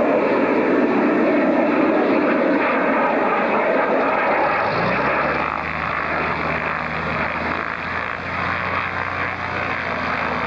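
Engine noise of a display aircraft passing overhead, loud for the first half and easing off as it flies away; about five seconds in, a steady low engine hum comes in and holds.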